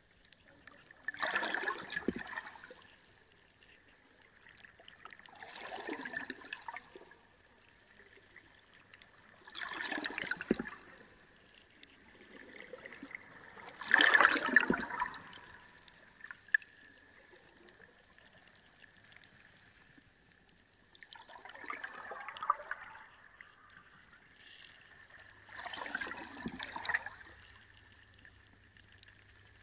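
Reef aquarium water splashing and gurgling in surges, about every four seconds, over a faint steady high hum. A low hum joins near the end.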